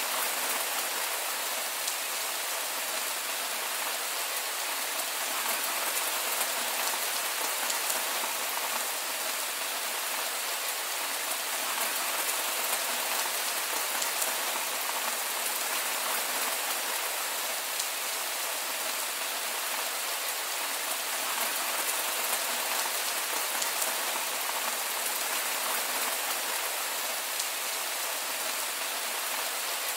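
Heavy rain falling steadily: an even, unbroken hiss with the small ticks of individual drops hitting.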